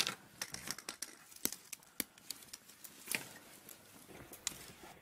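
Small irregular clicks and handling noises of gloved hands working a thin wire at a metal fitting on an instrument frame.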